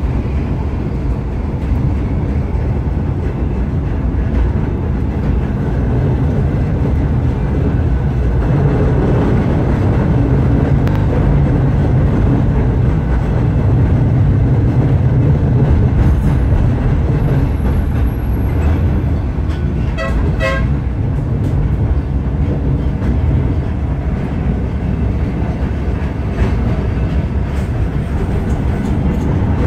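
Blackpool Balloon 700, a 1930s English Electric double-deck tram, running along street track, heard from inside the front cab as a steady low rumble of motors and wheels. About twenty seconds in, a brief pulsing warning signal sounds.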